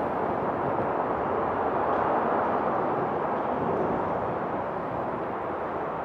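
Steady rushing jet noise from a Boeing 777 freighter on approach to land. It swells slightly about two seconds in and eases off toward the end.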